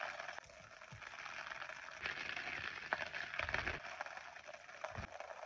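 Kebab sizzling on a grill: a steady crackling hiss, with a couple of dull knocks in the second half.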